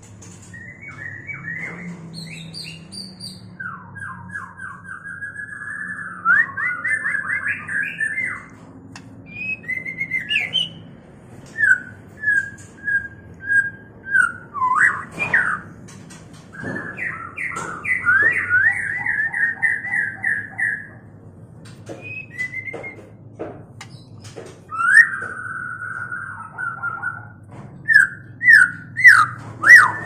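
White-rumped shamas calling in courtship: short whistled notes and fast rattling trills, broken by pauses and a few sharp clicks, ending in a loud run of rapidly repeated notes.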